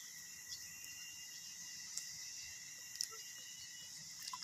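Steady chorus of insects such as crickets, with a couple of faint clicks about two and three seconds in.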